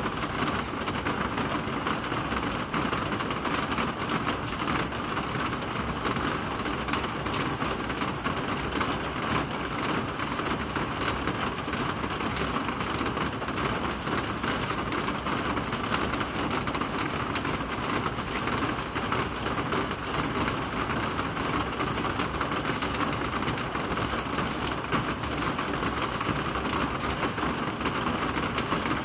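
Rain falling steadily, a dense, even patter of drops that does not let up.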